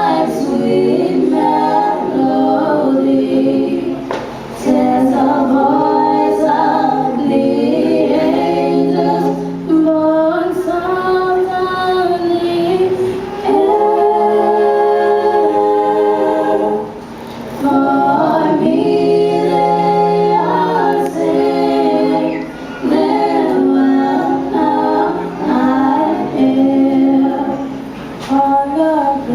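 A cappella choir singing several parts in harmony without instruments, with female voices prominent. The singing pauses briefly between phrases a few times.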